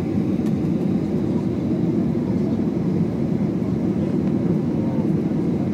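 Steady airliner cabin noise on landing approach: an even low rumble of engines and rushing air, heard from inside the cabin.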